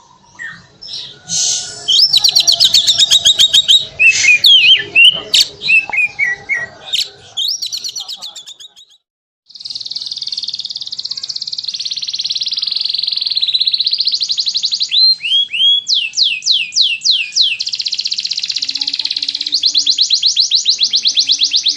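Canary singing: varied phrases of quick chirps and falling notes, then, after a short break, a long unbroken run of very rapid trills with repeated falling whistles.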